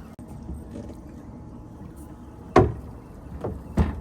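Water sloshing around a small boat, with two sharp slaps a little over a second apart near the end.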